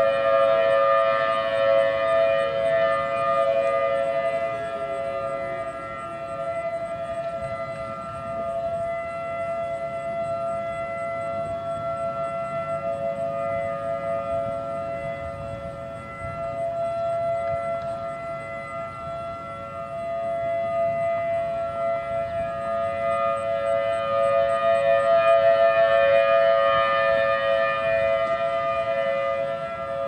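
Outdoor electromechanical civil defense sirens, chiefly a Federal Signal Model 5 and a Federal Signal Thunderbolt, sounding together at full speed in a steady blended wail of two held pitches. Their loudness swells and fades slowly over several seconds. A faint falling tone is heard about four seconds in.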